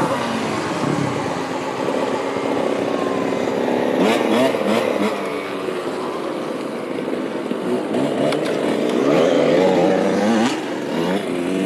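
Small two-stroke dirt bike engine revving up and down close by, its pitch climbing about four seconds in and again near the end, with wind rushing over the microphone.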